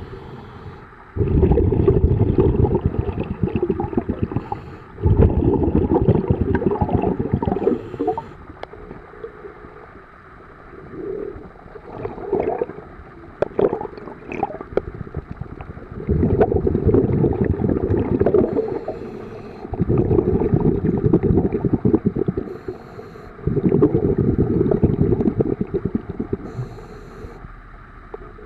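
A scuba diver's exhaled bubbles rushing out of the regulator underwater, in repeated breaths of about three to four seconds each with quieter gaps between. A quieter stretch in the middle holds scattered clicks and knocks.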